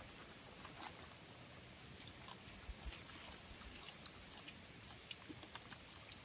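Insects chirring steadily at a high pitch, with faint scattered clicks and taps.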